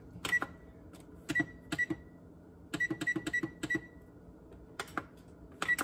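Electric oven's push-button control panel beeping with each key press as the bake temperature is set to 325°F: a string of short, high single beeps, each with a small click, including a quick run of four about three seconds in.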